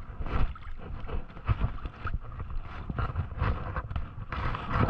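Wind buffeting the microphone in uneven gusts, with shallow seawater sloshing and lapping close below it.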